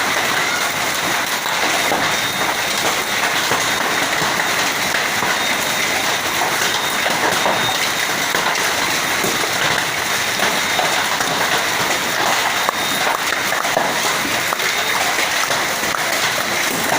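Hail falling with heavy rain: a steady, dense mass of small hits from hailstones and raindrops striking hard surfaces.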